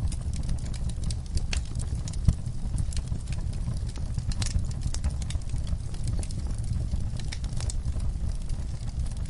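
Burning logs in a fireplace crackling: irregular sharp pops and snaps over a low, steady rumble of the flames, with one louder pop a little over two seconds in.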